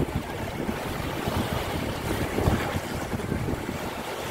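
Small waves washing in over a shallow sandy shoreline, with wind buffeting the microphone.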